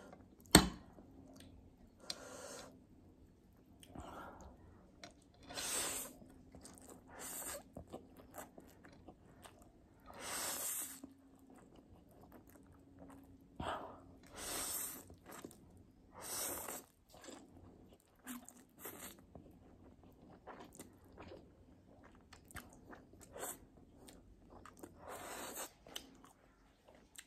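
Mouth sounds of a person eating instant ramen noodles: repeated slurps of about a second each, with chewing between them. A sharp click about half a second in is the loudest sound.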